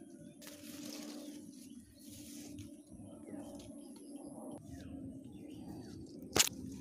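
Footsteps on a dirt path and grass and leaves rustling against legs and the camera while walking through undergrowth, with a single sharp knock near the end.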